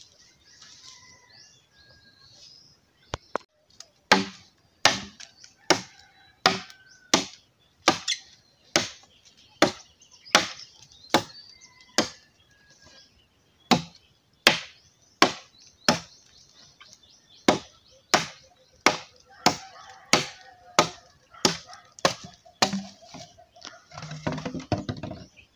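Machete blade chopping into a green bamboo pole, sharp strikes at about three every two seconds, beginning a few seconds in. The chopping gives way to a short burst of rougher noise near the end.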